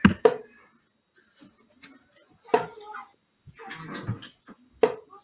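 Steel-tip darts striking a Winmau Blade 6 bristle dartboard one at a time, each a short sharp thud, about two seconds apart.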